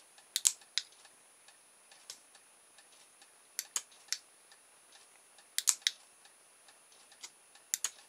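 Sharp mechanical clicks, about a dozen, irregular and often in close pairs, as the keyfob remote is pressed and the receiver's relay and the small 12 V door-lock solenoid switch in and out.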